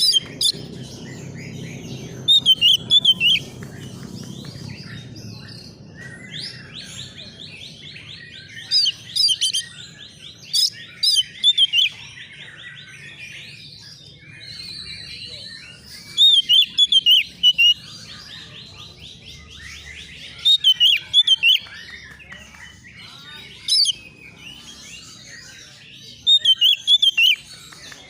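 Oriental magpie-robin singing loudly in short clusters of sharp whistled notes every few seconds, between long, even, buzzing trills. The bird is worked up and answering as if to a rival.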